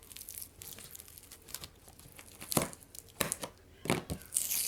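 Packaging being torn open: a series of sharp rips and crinkles, growing louder and denser from about halfway through, with a longer tearing hiss near the end.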